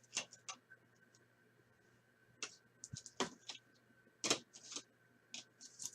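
Trading cards being handled and slid against one another, a scattered series of short swishes and light clicks over a faint steady hum.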